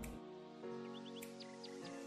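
Quiet background music with sustained held chords.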